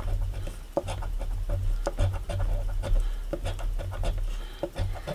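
A coin scraping the scratch-off coating off a lottery ticket in a quick run of short strokes.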